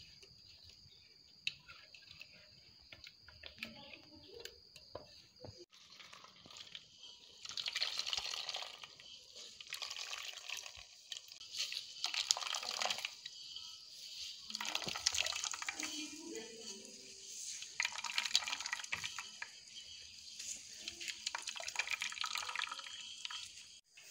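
Coconut milk wrung by hand from a wet cloth bundle of ground coconut, splashing and dripping into a steel bowl in repeated bursts. It starts about six seconds in, with each squeeze giving a few seconds of pouring liquid.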